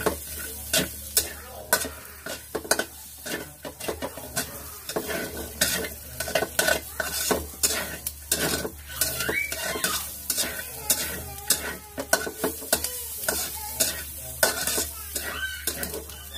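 Metal spatula scraping and clanking against a metal wok in irregular strokes as pieces of chicken are stir-fried, the chicken sizzling in the hot oil underneath.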